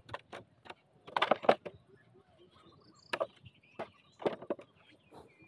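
Bamboo shoots being chopped at with a blade: a run of irregular sharp knocks and cracks, the loudest cluster about a second in, then scattered single strikes.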